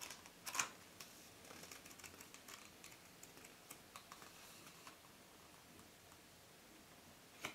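Pages of a paper booklet being flipped and handled: faint, scattered paper rustles and ticks, with one sharper snap of paper about half a second in.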